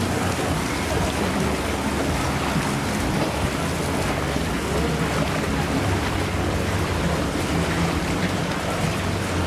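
Steady rush of rain and water in a flooded street, with a low engine hum underneath.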